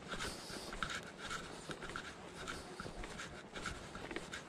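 Footsteps on dry grass and loose tilled soil at a walking pace, about two scratchy steps a second, over a faint steady hiss.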